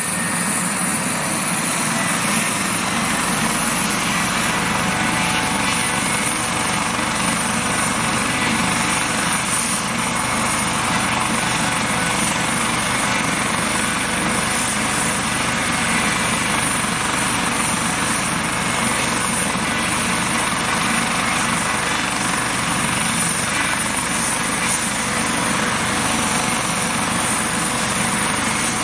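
Twin-turbine Eurocopter AS365 Dauphin air ambulance helicopter running on the ground with its main rotor turning: a steady rotor and engine noise with a constant high-pitched turbine whine over it.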